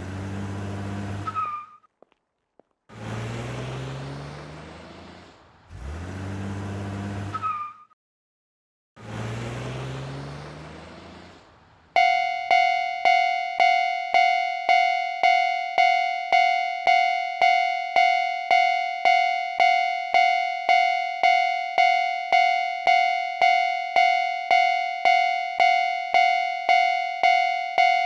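Four cars drive past one after another, each a short rising engine swell. About twelve seconds in, a Japanese railroad crossing alarm starts ringing at about two strikes a second, the warning that a train is approaching.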